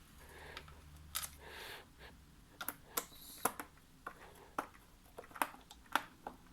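Irregular sharp clicks and taps, about ten, of small screws and a screwdriver against the plastic case of a keyboard being reassembled.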